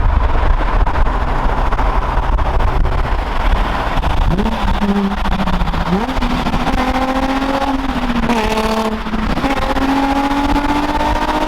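A car under way: a heavy low rumble at first, then the engine note rises and holds, stepping up and down a few times as the revs change.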